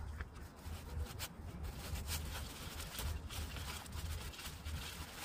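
Faint, scattered clicks of a gloved hand threading a gearbox plug in by hand, over a low steady rumble.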